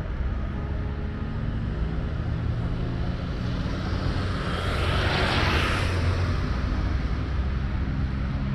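A motor vehicle going past: a low engine rumble with a rushing hiss that swells to a peak about five seconds in and then fades.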